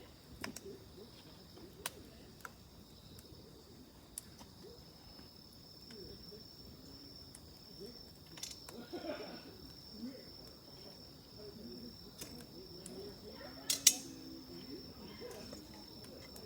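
Wood fire crackling with scattered sharp pops, one much louder near the end, over a steady high insect trill.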